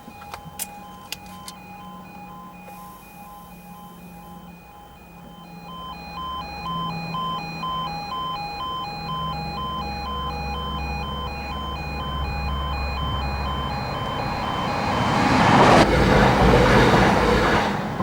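Level crossing audible warning alarm pulsing steadily while a diesel passenger train approaches, its engine hum building, then passes over the crossing with a loud rush of wheel and engine noise near the end.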